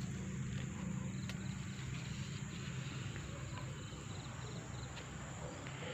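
Insects chirping faintly in short trills over a steady low hum.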